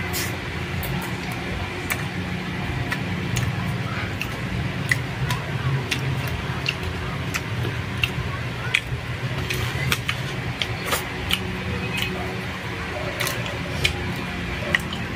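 Close-up eating sounds: a person chewing roasted chicken and rice, with frequent irregular wet mouth clicks and smacks, over a steady low hum.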